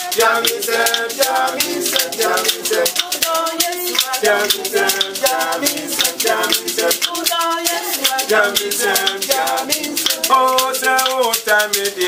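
Small group of voices singing together, accompanied by a shaken rattle keeping a steady quick beat.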